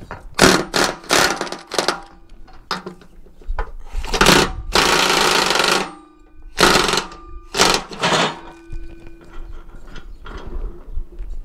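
Impact wrench running in a series of short hammering bursts, with one longer burst about five seconds in, as it runs down a 22 mm nut on the mower deck.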